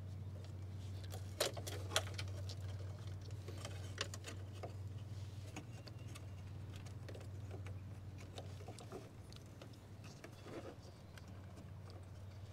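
Light clicks, scrapes and rustles of hands threading a pool heater's replacement temperature sensor into its fitting, over a steady low hum.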